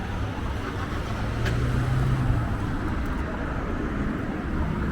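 Road traffic passing along a town street, with one vehicle's engine louder for a second or so near the middle.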